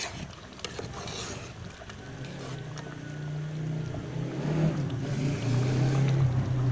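Thick lechon paksiw sauce boiling hard in an uncovered pot, a low bubbling that grows louder through the second half. A brief clatter and hiss near the start as the lid comes off.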